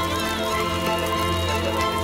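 Background music of held, sustained chords over a steady low bass note.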